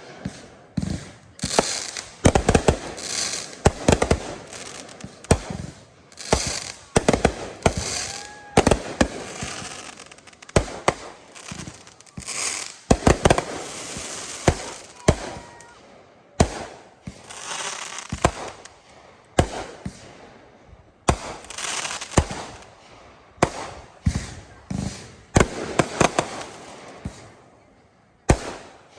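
Consumer fireworks display: 500 g cakes and 3-inch artillery shells firing and bursting in quick succession, a dense run of sharp bangs with crackling between them and brief pauses.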